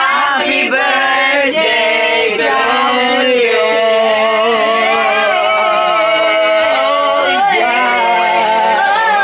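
A group of young people singing loudly together, several voices at once.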